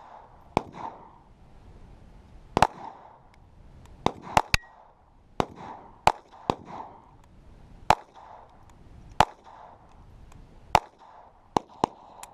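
Walther P22 .22LR pistol firing Federal Game Shok rounds, about a dozen shots at an irregular pace, most a second or more apart with a quick run of three close together. Each shot is a sharp crack with a short ringing tail, and the pistol keeps cycling without a stoppage.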